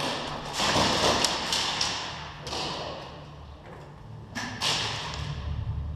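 Thuds and rustling noise in several bursts, with a low rumble underneath.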